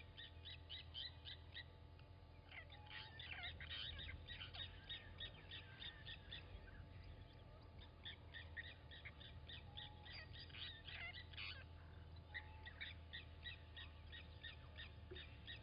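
Blacksmith lapwing giving its sharp, metallic 'tink-tink' alarm calls, fast runs of about five or six notes a second with short breaks, as it mobs a Wahlberg's eagle.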